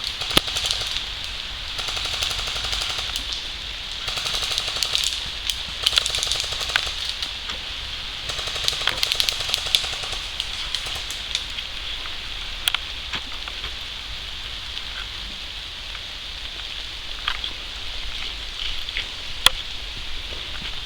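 Airsoft electric rifle firing three bursts of rapid shots, each about a second long, with single sharp snaps scattered in between.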